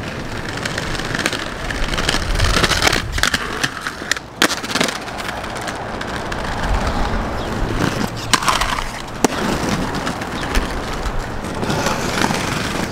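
Aggressive inline skate wheels rolling on concrete, with a few sharp clacks and scrapes of the skates striking and sliding along a ledge.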